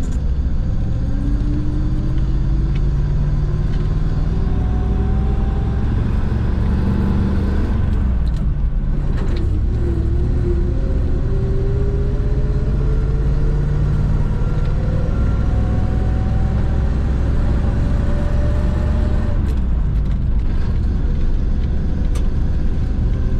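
Truck engine running under load as heard from inside the cab, its pitch slowly rising as it pulls through the gears, with a drop in pitch about nine seconds in at a shift.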